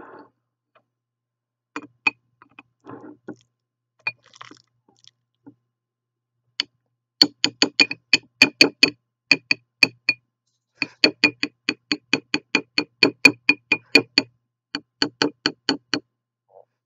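Metal potato masher knocking against the bottom of a glass bowl as it mashes avocado. It starts with a few scattered soft knocks, then from about seven seconds in comes in quick runs of about five sharp knocks a second, with short breaks.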